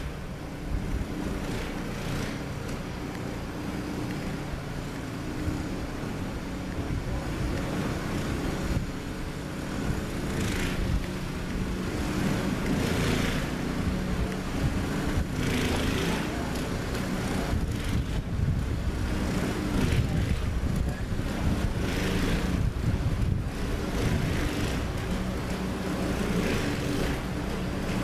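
A steady low rumble, with short crunching, swishing sounds of deep powder snow every few seconds as a Siberian husky digs in a snowdrift and a person wades through it.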